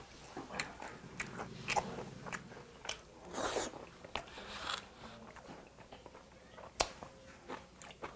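A person chewing food close to a clip-on microphone, with scattered soft mouth sounds and a single sharp click about seven seconds in.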